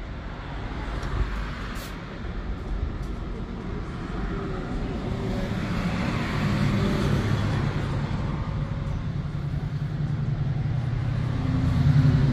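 Road traffic passing close by. A car goes by around the middle, then a heavy vehicle's engine drone builds, loudest near the end.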